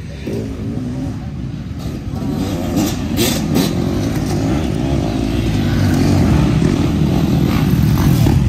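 Several dirt bike engines racing past one after another, revving under throttle, getting louder about a third of the way in as the bikes pass close by.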